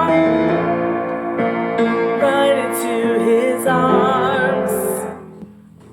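Singing in unison with piano accompaniment: long held notes with vibrato on the closing line of a worship song, dying away about five seconds in.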